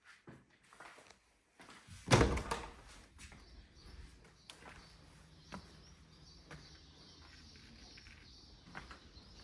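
A glass patio door being opened, with one loud sudden knock from the door about two seconds in. After it comes a faint steady outdoor background with scattered small clicks and bird chirps.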